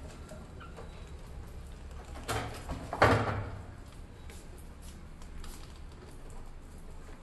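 A clear plastic tipping platform on a homemade bucket mouse trap clatters as it tips under a mouse and knocks back into place, twice: a smaller knock, then a louder one that rings briefly.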